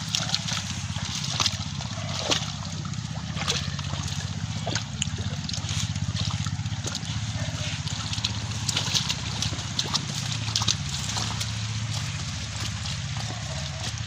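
A dog wading through shallow muddy pond water and water hyacinth, with irregular splashing, sloshing and crackling of plant stems. A steady low hum runs underneath.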